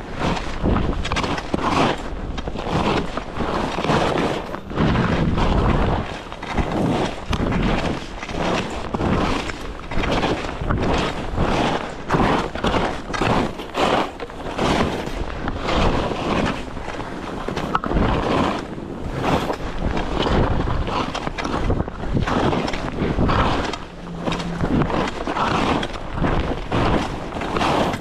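Wind buffeting the microphone of a skier moving downhill, mixed with the rush and scrape of skis on snow that swells and fades with each turn.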